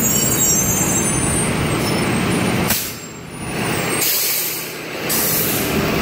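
Steady rushing noise of wind on the phone's microphone mixed with a school bus nearby. Short, high hisses of the kind a bus's air brakes make come in from about three seconds in.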